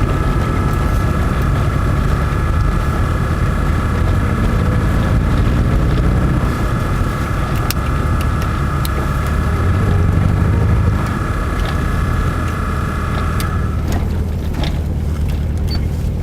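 VAZ 2114's tuned four-cylinder engine with a straight-through exhaust (4-2-1 header, Remus muffler) running loud under way, with a steady high whine that stops about three seconds before the end.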